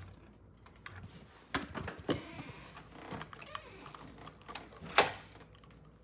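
Scattered clicks and knocks of a smart lock's exterior assembly being handled and fitted against the door, its cable pushed through past the deadbolt; a sharp knock about five seconds in is the loudest.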